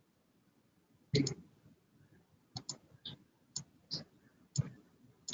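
Scattered sharp clicks from a computer mouse and keyboard being worked, about eight in all with short quiet gaps, the loudest a quick double click about a second in.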